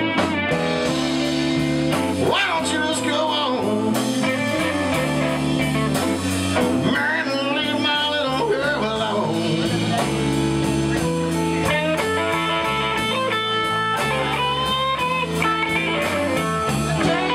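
Live blues-rock band playing an instrumental stretch: an electric guitar lead with bent, sliding notes over bass guitar and drums.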